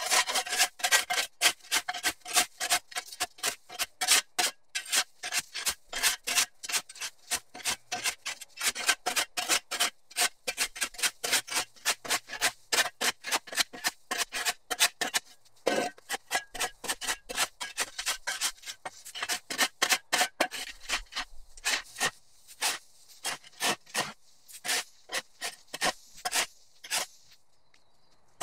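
Steel shovel blade scraping across concrete in quick repeated strokes, several a second, clearing overgrown grass out of sidewalk cracks and edges; the strokes thin out near the end.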